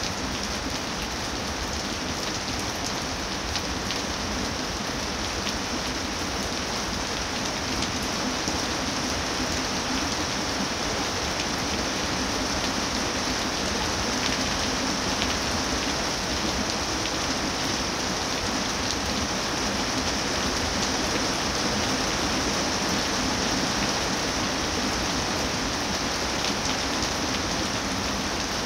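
Steady rain falling, an even hiss of many drops with an occasional single drip standing out.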